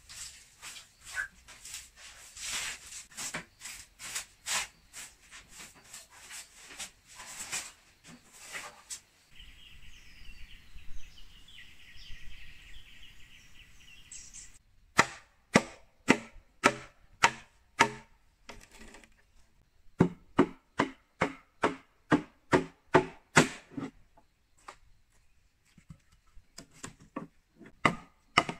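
Machete chopping bamboo: repeated sharp strikes, about two a second in the steadiest run, with a pause of several seconds partway through.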